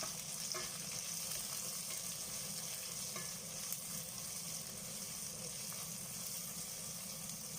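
Chopped shallots sizzling steadily in hot coconut oil in a kadai as they are sautéed, with a few faint clicks of the spatula stirring.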